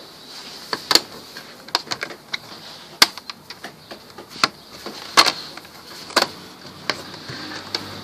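Plastic clips of a Toshiba P50 laptop's bottom cover snapping into place as hands press along it: a series of irregular sharp clicks, two of them louder around the middle. The clicks are the sign that the cover is closing properly.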